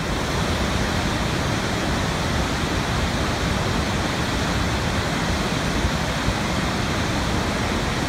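A large waterfall: a loud, steady rush of falling water.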